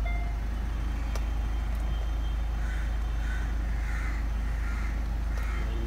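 Steady low rumble of a car engine running, heard from inside the car, with faint soft pips repeating about every two-thirds of a second in the middle.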